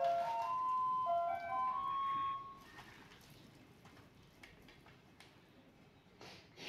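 A simple electronic jingle, one clear note at a time stepping up and down, stopping about two and a half seconds in. After it, only faint wet squelches and clicks of hands kneading fish pieces in a thick spice batter.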